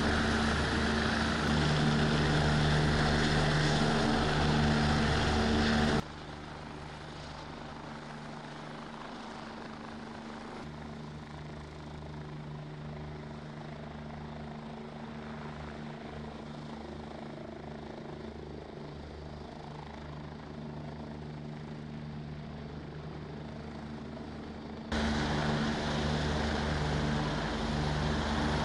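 Helicopter hovering, its rotor and engine running steadily. About six seconds in the sound drops sharply to a fainter level. It comes back loud a few seconds before the end.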